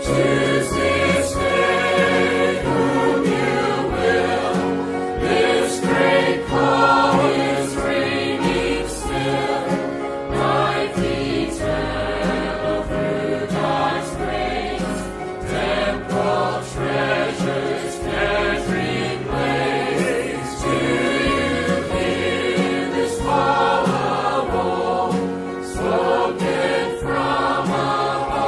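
Church choir singing a gospel hymn over a steady beat.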